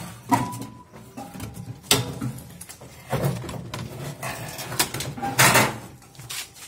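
Sheet-metal cabinet of a Drean Next front-loading washing machine being lifted off the tub: irregular knocks, scrapes and clatters of metal and plastic, loudest about five and a half seconds in.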